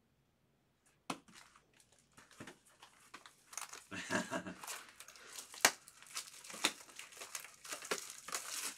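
Plastic trading-card packaging crinkling and tearing as it is ripped open by hand. It starts about a second in, grows busier, and has one sharp snap near the middle.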